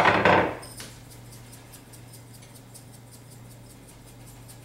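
Salt shaker being shaken over a dish of chicken and vegetables: a run of light, even ticks, several a second, after a brief clatter at the start.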